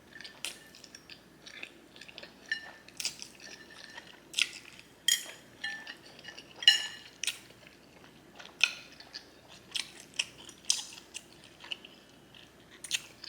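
Close-miked mouth chewing a mouthful of garlic noodles and shrimp: irregular wet smacks and clicks, a few each second, the loudest a little past the middle.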